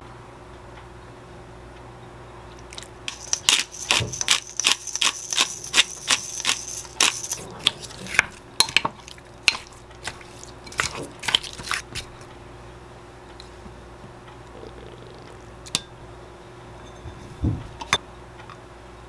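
Wooden spoon clicking and scraping against a glass mixing bowl as raw chicken pieces are tossed with seasoning, in a dense run of quick clicks over several seconds. A few separate taps of utensils and bottles follow near the end, over a faint steady appliance hum.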